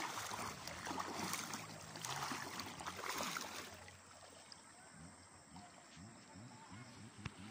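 River water splashing and trickling close to the microphone, dropping to a faint trickle about halfway through, with one sharp click near the end.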